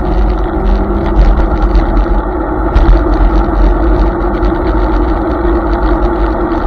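Hiboy S2 Pro electric scooter riding at speed: wind buffeting the microphone with a low, fluttering rumble, over tyre and road noise and a steady hum.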